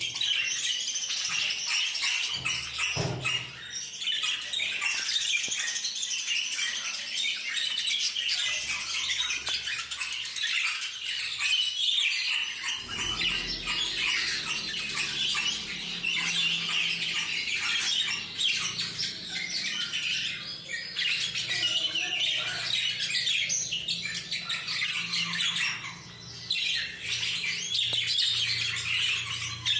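A flock of parakeets chattering and squawking all together, a dense, unbroken babble of calls. A faint low hum joins in about halfway through.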